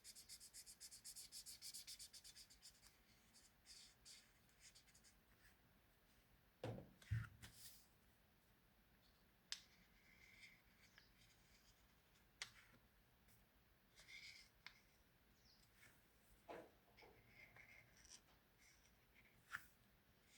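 Quiet handcrafting sounds: a fast run of scratchy strokes for the first few seconds, then scattered light clicks and taps with one louder soft thump about seven seconds in.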